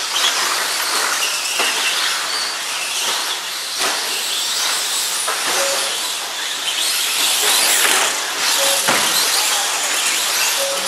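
Radio-controlled 2wd short course trucks racing on a dirt track: a steady dense whir of motors and tyres, with occasional knocks.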